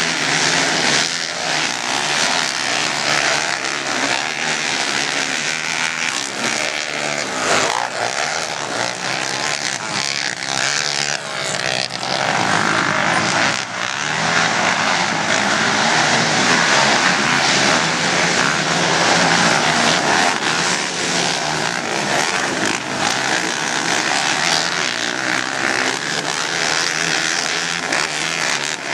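Engines of several 300- and 450-class racing quads (ATVs) running around a dirt motocross track, the engine note rising and falling as the riders throttle on and off.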